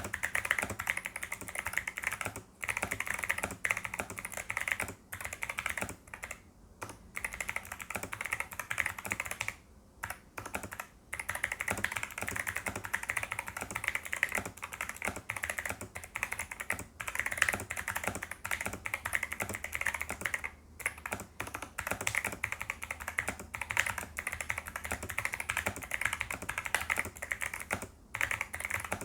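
Fast continuous typing on an Everglide SK68 gasket-mount mechanical keyboard with Kailh Box White clicky switches and PBT keycaps: a dense stream of sharp key clicks, broken by a few short pauses.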